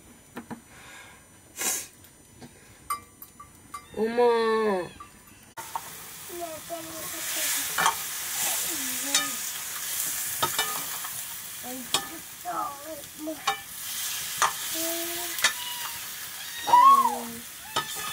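Chicken pieces frying in hot oil in a wok, sizzling steadily from about five and a half seconds in, with a steel ladle scraping and stirring against the pan. A cat meows once about four seconds in and several more times during the frying, loudest near the end.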